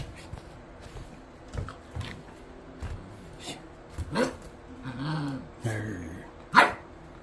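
Puppy barking: a sharp bark about four seconds in and a louder one near the end, with a low drawn-out vocal sound between them.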